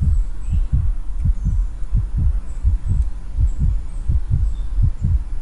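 Background music with a steady, deep bass beat, about two and a half beats a second.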